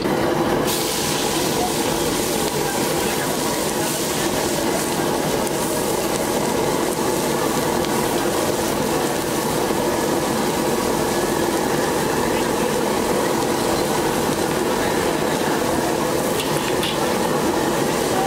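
Shredded cabbage and carrots frying in hot oil in a large wok: a loud sizzle that starts abruptly about a second in as the vegetables go in, then runs on steadily.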